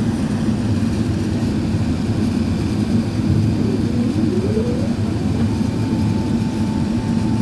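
Steady low rumble of engine and airflow noise inside an Airbus A380's cabin during its descent. About four seconds in, a thin whine rises in pitch and then holds at one steady note.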